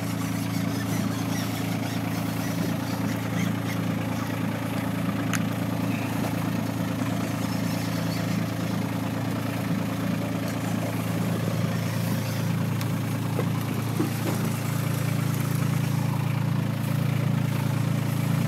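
Boat engine idling, a steady low hum that holds even throughout.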